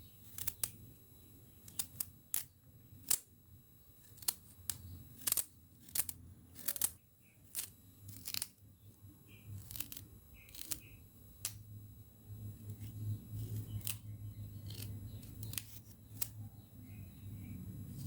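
Kitchen knife chopping carrots against a cutting board: irregular sharp knocks, one or two a second, fewer in the second half, over a steady low hum.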